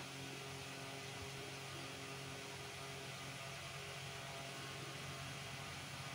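A steady low hum under an even background hiss.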